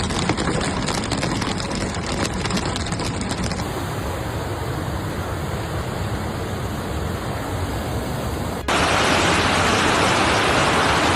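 Steady rushing noise of a heavy rainstorm and floodwater, in three stretches that cut abruptly into one another, about three and a half seconds in and again near nine seconds, where it becomes louder.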